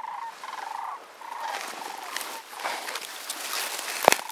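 Sandhill cranes calling overhead, their rolling, rattling calls overlapping, strongest in the first second and a half and then fading. Dry grass rustles against the microphone, and a single sharp click about four seconds in is the loudest sound.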